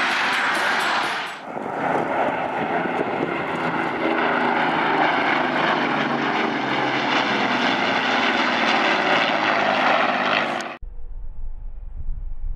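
Loud, steady jet engine noise of military jets, which cuts off abruptly about eleven seconds in. After the cut comes a low wind rumble on the microphone, with a regional jet faint behind it on approach.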